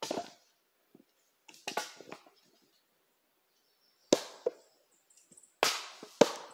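Axe blows splitting firewood: a series of sharp chops into a wooden block, about six in all. The heaviest strikes come in the second half, two of them in quick succession near the end.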